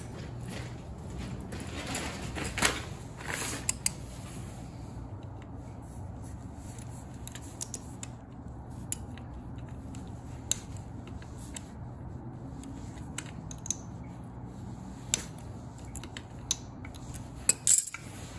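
Pliers clicking, clinking and scraping against the metal hub and retaining clip of a furnace inducer motor's fan wheel. A few sharp clicks are scattered through, with a scraping stretch about two to four seconds in and a quick cluster of clicks near the end, over a low steady hum.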